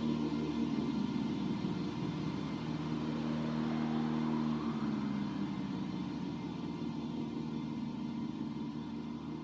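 Ambient electronic music: sustained low drone chords with a fast fluttering pulse running through them and a slow rising glide in the middle, fading slightly toward the end.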